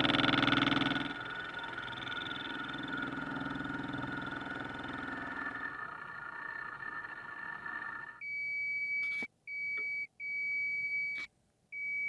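A machine running with a steady hum fades away over several seconds. Then an electronic device beeps a single high tone several times, the beeps of uneven length, the last one starting near the end.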